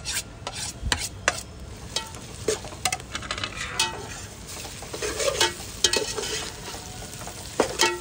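Onions, whole spices and crushed ginger-garlic sizzling in hot mustard oil in a pot while a spoon stirs, with irregular scrapes and clinks of the spoon against the pot.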